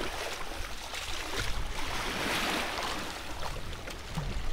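Shallow water splashing and sloshing around the legs of people wading while they handle a hammerhead shark in the water, swelling in the middle, with a low wind rumble on the microphone.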